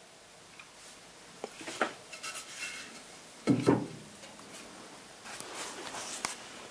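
Dry split firewood being stacked in a wood-burning stove's firebox: logs knocking and clattering against each other and the stove, with scraping between knocks and the loudest thump about three and a half seconds in.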